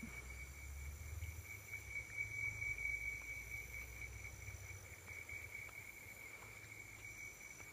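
Faint, steady trilling of crickets, one continuous high note, with a low rumble in the first few seconds.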